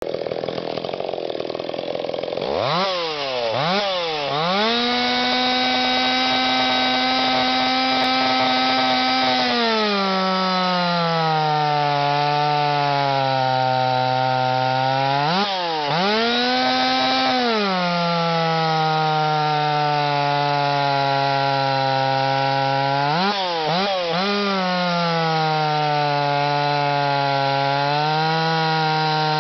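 Stihl 026 two-stroke chainsaw with an 18-inch bar and .325 chain cutting through a red oak log. About two and a half seconds in it revs up to full throttle, and a few seconds later the pitch drops as the chain bites into the wood and the engine pulls under load. Twice it briefly revs back up, then settles into the cut again.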